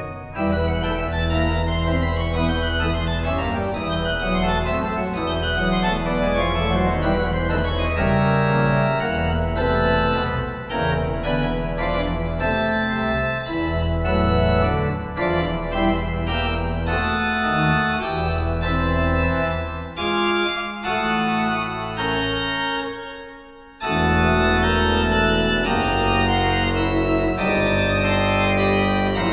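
Pipe organ playing loud, dense chords over a deep sustained pedal bass, with fast running figures in the first several seconds. About 22 seconds in the sound thins and fades briefly, then a full chord comes back in.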